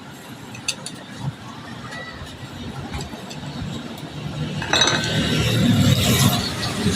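Small metal parts and hand tools clinking and clattering on a workbench: a few light clicks about a second in, then louder, busier rattling and scraping from about five seconds in.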